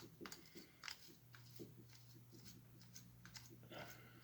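Faint, scattered small clicks and scratches of a tool picking built-up gunk off the gear of an HO-scale model locomotive.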